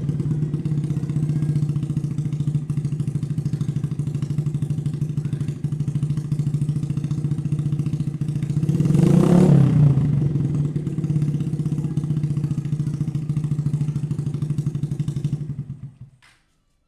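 Suzuki Shogun Axelo R motorcycle engine with an aftermarket X1 Speed Racing silencer, idling with a steady pulsing exhaust note. It gets one quick rev about halfway through, then the engine is switched off near the end and the sound dies away.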